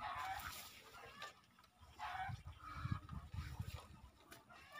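Chickens calling in short pitched bursts, about one every two seconds. Low rumbles come and go in the middle and are the loudest part.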